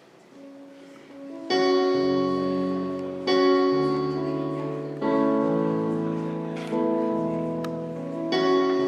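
Slow piano chords, each struck firmly and left to ring and fade before the next, about one every one and a half to two seconds. The first chord comes in after a quiet second and a half.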